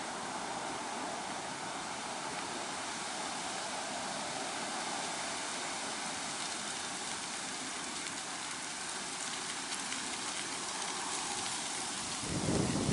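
Steady outdoor hiss with no bird calls to be heard; near the end, wind starts buffeting the microphone with a loud low rumble.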